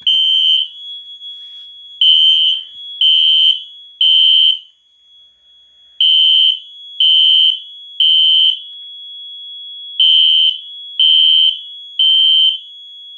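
System Sensor SpectrAlert Classic P1224MCA horn strobe sounding its low-volume electromechanical tone in the temporal-three evacuation pattern: three half-second blasts, a pause, then again. A steady high tone runs beneath the blasts.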